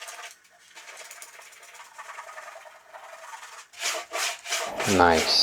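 A wax birthday candle rubbed back and forth on wood, waxing a table-saw crosscut sled. The strokes are faint at first and louder about four seconds in.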